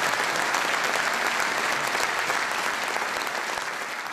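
Audience applauding, a dense patter of clapping that slowly grows quieter.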